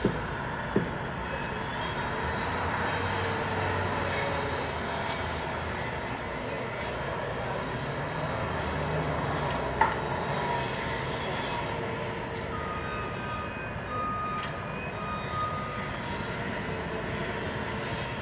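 Steady outdoor traffic hum of passing and idling vehicles, with a low engine rumble swelling twice. About two-thirds of the way through comes a short run of high, evenly pitched beeps.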